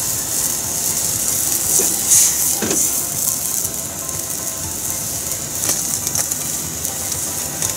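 Sake boiling in a saucepan on a gas burner while its alcohol burns off in flames: a steady hiss with a few faint clicks.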